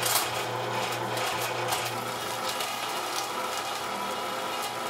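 Electric MEAT! Your Maker #32 meat grinder running with a steady motor hum. Its auger crunches wooden pencils through the plate, with irregular sharp cracks and snaps throughout.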